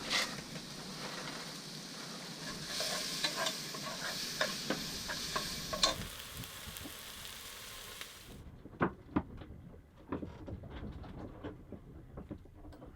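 Food sizzling in a frying pan while a utensil clicks and scrapes against it. About eight seconds in, the sizzle stops suddenly, leaving scattered clinks and knocks.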